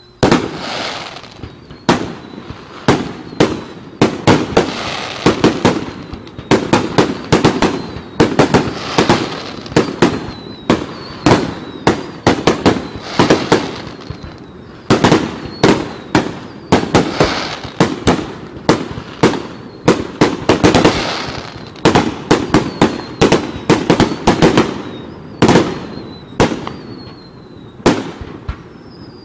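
Aerial fireworks display: shells bursting in a steady barrage of sharp bangs, one to three a second, with crackling between the bangs.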